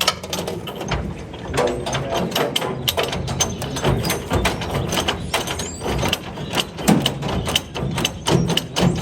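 Irregular metallic clicking and clanking of an Allis-Chalmers combine's drive shaft and chain as the bound-up shaft is pried and worked by hand with a rod.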